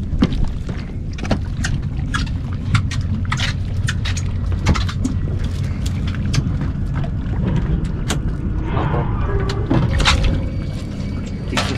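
Water lapping and slapping against a small boat's hull over a steady low rumble, with many short clicks and knocks scattered throughout.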